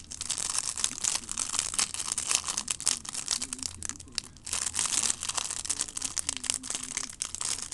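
Crinkling and tearing of a trading-card pack wrapper being worked open by hand, a dense run of crackles with a brief lull about four seconds in; the pack is a stubborn one to open.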